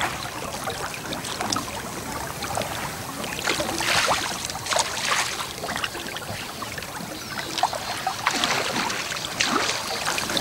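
Water splashing and trickling in irregular bursts around a wooden boat being poled through shallow, weedy lake water.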